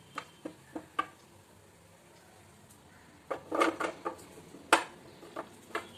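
Peeled palmyra sprouts knocking and clattering against a plate as they are handled and set down. There are a few light knocks in the first second, a busier clatter about three and a half seconds in, and a sharp knock just under five seconds in.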